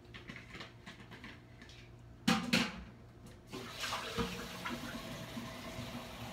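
Kitchen clatter: two sharp knocks a little past the middle, then a steady hiss of water running from a tap.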